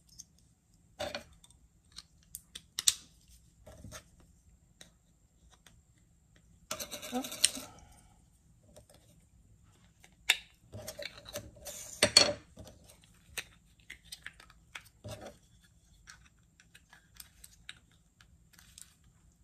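Plastic clicks and snaps as wheels of a Celebrate It rolling embossing cutter are taken off and fitted onto its plastic handle. A rustling scrape lasts about a second, seven seconds in, and a cluster of sharper clicks comes around ten to twelve seconds in, the loudest of them there.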